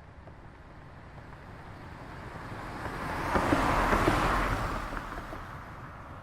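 A single car passing by: the tyre and engine noise builds steadily, peaks a little past the middle, and fades away toward the end.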